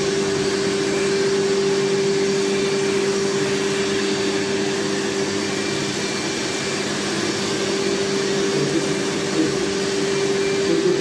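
Fakir Deluxe Öko Line 9800S carpet and upholstery washing machine running steadily, a constant motor whine over the rush of its suction, with the narrow upholstery nozzle drawn across a fabric sofa.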